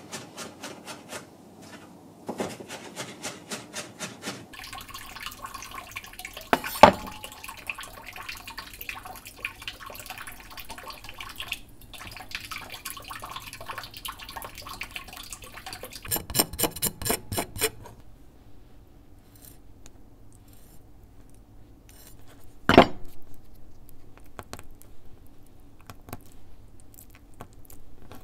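A chef's knife chopping diced onion on a wooden cutting board with fast, even strokes. Then raw shrimp are peeled and handled beside a glass bowl of water, with dish clatter, a second quick run of knife taps, and one sharp knock on the board.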